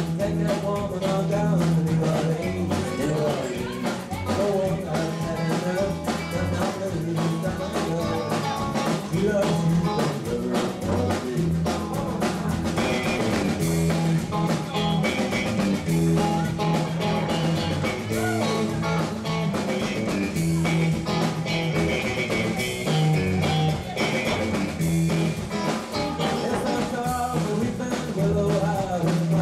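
A live country-rock cover band playing a song: electric guitar, bass and drums, with a woman singing lead into a microphone.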